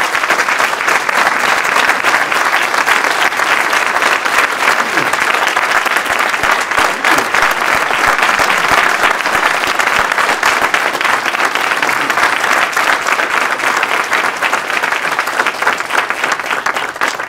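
Audience applauding, a loud, dense and steady clatter of many hands clapping.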